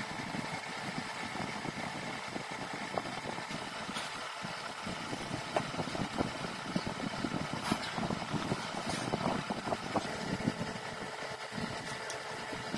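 Steady mechanical running noise like an idling engine or motor, with a few faint short clicks.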